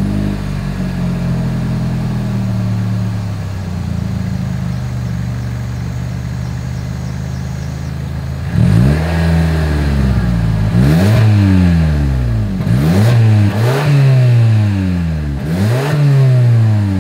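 2023 Toyota Camry XSE's exhaust, heard from behind the quad tips: the engine idles just after start-up, its idle easing slightly lower over the first several seconds. About halfway in it is revved five times in a row, each rev rising and falling back toward idle.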